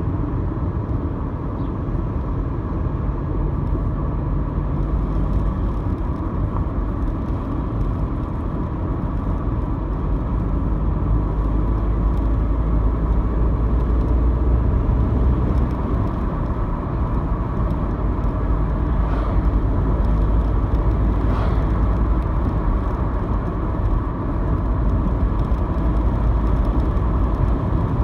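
Steady low road rumble of tyres and engine heard inside a moving car's cabin while cruising on an open road.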